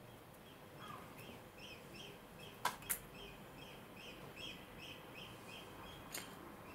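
A bird chirping faintly in a steady run of short calls, about two or three a second. Two sharp clicks come close together a little before the middle, and one more near the end.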